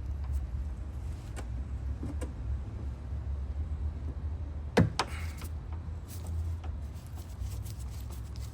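Hand tools working the T30 Torx screw inside a car's exterior door handle: scattered faint clicks and taps, with one sharp click about five seconds in, over a steady low rumble.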